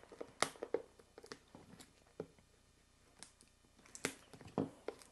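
A small blade cutting the seal on a cardboard box, making scattered faint scratches and clicks, with a few louder scrapes about four seconds in.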